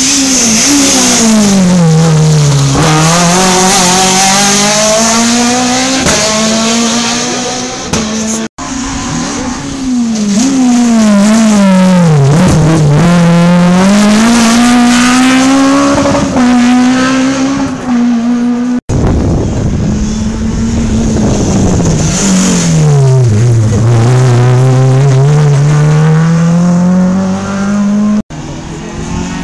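Rally cars passing a corner on a special stage, one per clip: each engine note drops as the car slows for the bend, then climbs as it accelerates away. This happens three times, with abrupt cuts between the passes.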